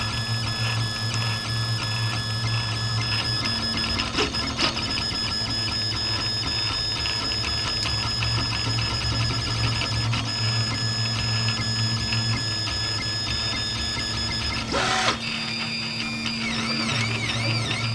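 3D printer running a print: its stepper motors and fans give a steady hum with a high whine. There are a couple of brief knocks, a louder one about three-quarters of the way through, and near the end a run of quick rising-and-falling whines as the motors speed up and slow down through short moves.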